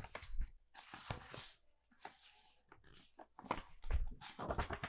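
Pages of a painted sketchbook being turned and flattened by hand: a string of short paper rustles and flicks, with a soft knock of the book or hand against the table near the start and again about four seconds in.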